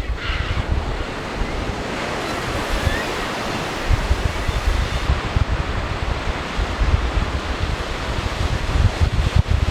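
Pacific surf washing steadily onto the shore, with wind gusts buffeting the microphone.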